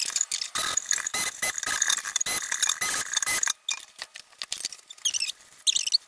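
Fast-forwarded audio of a stick blender mixing lye solution into melted soap in a steel pot, sped up into a dense, high-pitched clatter of clicks with a thin whine. After about three and a half seconds it thins to scattered clicks and short chirping sounds.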